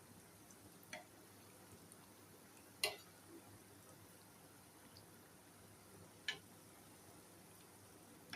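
Near silence in a quiet room, broken by three short, sharp clicks spaced a few seconds apart, the second the loudest, and a fourth right at the end.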